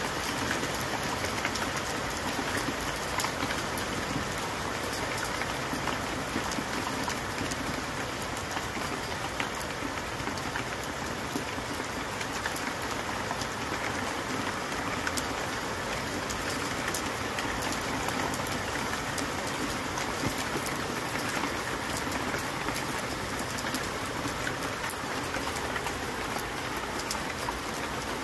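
Heavy, steady rain falling on open grass, fields and trees: a constant hiss dotted with the ticks of individual drops.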